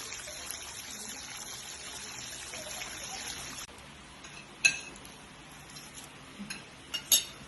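Water running steadily, cutting off suddenly about halfway through, then a few sharp ringing clinks.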